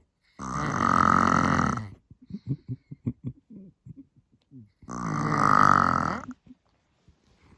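A woman snoring loudly in her sleep: two long snores about four and a half seconds apart, each lasting about a second and a half, with a string of short, softer sounds between them.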